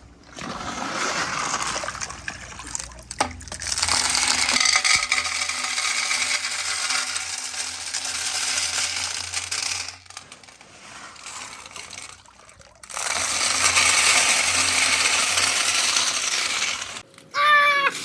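Many marbles rolling and clattering down a wooden marble run, in three long stretches of dense rattling with short lulls between them. Near the end comes a short, loud, high-pitched voice-like squeal.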